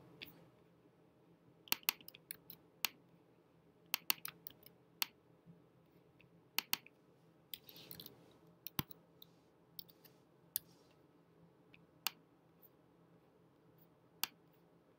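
Scattered sharp clicks of a computer keyboard and mouse, some in quick clusters of two or three, as a price is typed into a field and saved.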